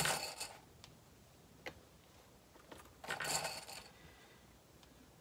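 Hands handling fabric and small items on a cutting mat: a short rustling scrape at the start, two light clicks in the next second or so, and another brief rustle about three seconds in.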